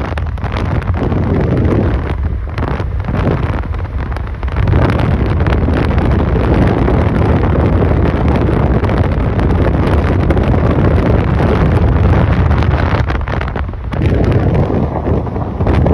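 Wind buffeting the microphone of a moving phone camera: a loud, steady low rumble that dips briefly near the end.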